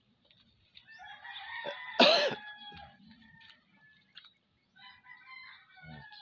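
A rooster crows once, starting about a second in and loudest around two seconds in, followed by fainter chicken calls near the end.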